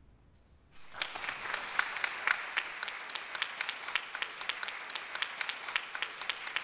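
A brief hush, then an audience breaks into applause about a second in: dense, irregular hand clapping that carries on steadily.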